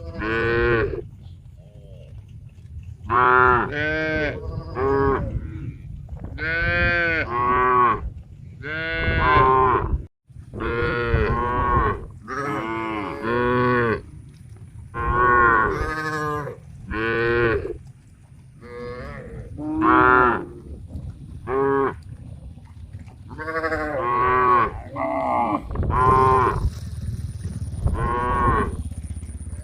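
A herd of cattle mooing, call after call in quick succession: short and longer moos, some overlapping, over a steady low rumble.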